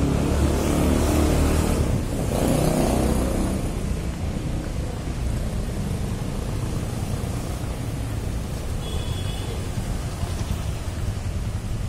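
Motorbike engines passing close on a paved street, loudest in the first few seconds as one revs by, then a steady low traffic hum. A brief high chirp sounds about nine seconds in.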